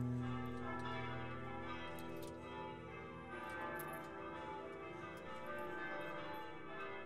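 Soft soundtrack music of ringing, bell-like tones that slowly fade, with a few new notes along the way.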